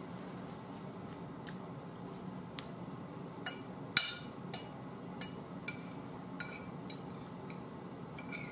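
A metal fork clinking and scraping against a plate about ten times, unevenly spaced, with soft chewing in between.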